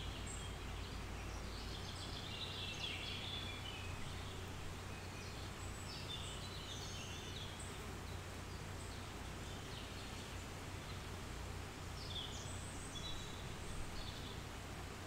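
Birds chirping on and off, faint, over a steady low hum.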